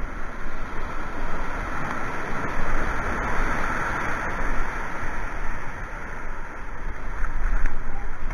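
White water rushing through a river weir, a steady roar that swells a little about midway, with low wind buffeting on the microphone.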